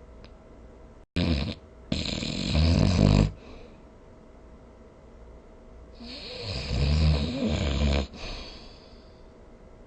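A person snoring: a short snort just after a second in, then a loud snore, and about four seconds later a second snore that swells and stops abruptly.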